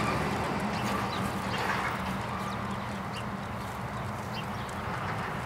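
Steady low rumble of road traffic, with a few faint short sounds over it.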